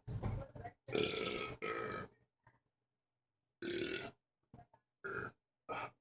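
A man belching repeatedly: about six burps in quick succession, each well under a second long, separated by short gaps of dead silence where the clips are cut together.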